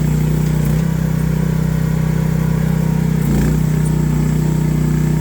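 AGT H12R mini excavator's small petrol engine running steadily at high throttle, its note wavering briefly about three seconds in.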